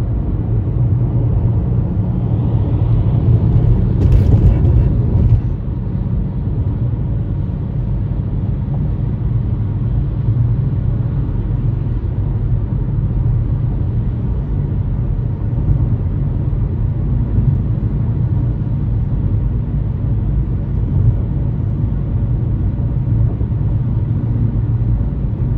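Steady low rumble of a car's road and engine noise heard from inside the cabin while driving, a little louder for a few seconds near the start.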